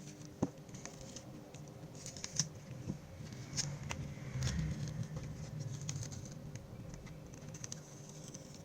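Small irregular clicks and light scraping of tools and fingers working the back cover off a Samsung Galaxy A05s phone, over a faint low hum.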